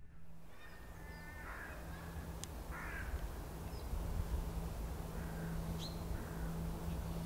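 Crows cawing a few times, mostly in the first three seconds, with a few faint high bird chirps over a low steady hum.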